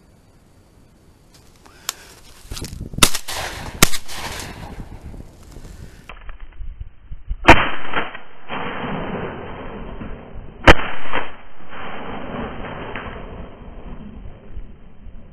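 Four shotgun shots: two about a second apart, then two more about three seconds apart.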